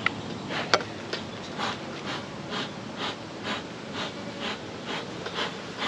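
Honeybees buzzing steadily around an opened hive. Two sharp knocks in the first second come as the hive lid comes off, and a soft swishing repeats about twice a second.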